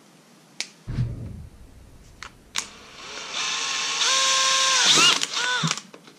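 A few handling clicks and a low thump, then a cordless drill spins up about three seconds in and bores a hole through 2-inch PVC pipe. Its whine sags and recovers twice as the bit bites into the plastic, and it stops just before the end.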